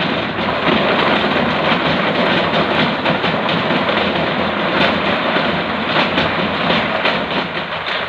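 A dump truck's load of river boulders pouring out of the tipped bed and tumbling down a stone embankment: a continuous, dense clatter of rocks knocking against rock, thinning out near the end as the bed empties.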